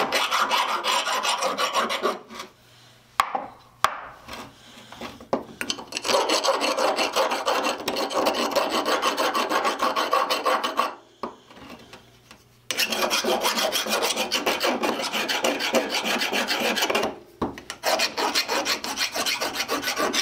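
Hand file rasping across a freshly welded steel part, cleaning up the weld. It goes in quick back-and-forth strokes, in several runs of a few seconds with short pauses between.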